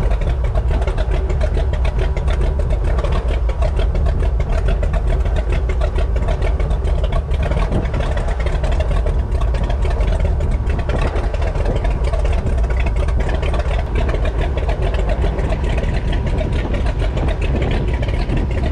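Loud, steady rumble of wind on the microphone over a boat motor running at trolling speed, with water churning at the stern.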